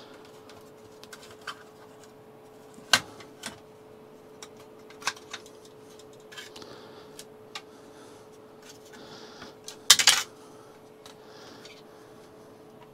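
Circuit board and plastic case of a payphone modem being handled: scattered sharp clicks and knocks, the loudest cluster of clicks about ten seconds in, over a faint steady hum.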